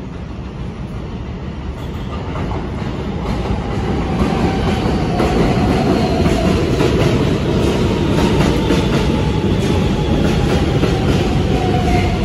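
An R160B subway train approaching and running into an elevated station. Its rumble builds over the first few seconds and then holds steady, with wheels clicking over the rail joints and a motor whine that falls slowly in pitch.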